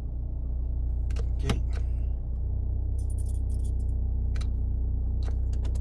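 Vauxhall Insignia engine idling steadily, heard from inside the cabin, with a few sharp clicks and a short metallic jingle of keys about three seconds in.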